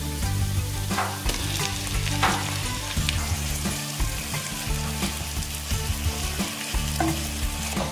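Diced meat sizzling as it fries in hot oil over a soffritto of softened onion, garlic and chili in a nonstick pan, stirred with a utensil: a steady sizzle with occasional scrapes.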